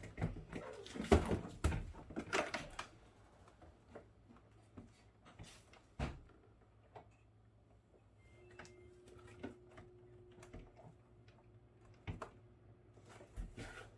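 Clatter and knocks of plastic refrigerator parts being handled during disassembly, busiest in the first few seconds, then scattered small clicks and taps. A faint steady tone comes in about eight seconds in.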